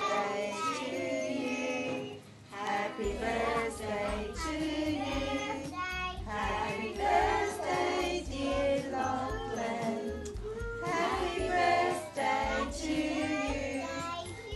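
Music with a group of voices singing; a low bass part comes in about three seconds in.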